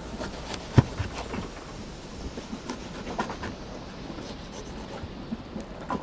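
Kitchen knife cutting through a lime on a wooden board, with a few sharp knocks of the blade on the wood, the loudest about a second in. A steady hiss sits underneath.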